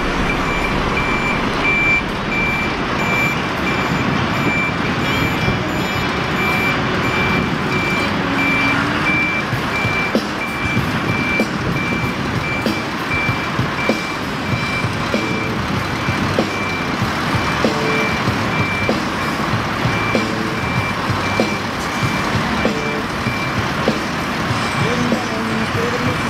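Reversing alarm of an articulated truck beeping in a rapid, even series of high-pitched beeps as the tractor-trailer backs up, over the steady running of its diesel engine.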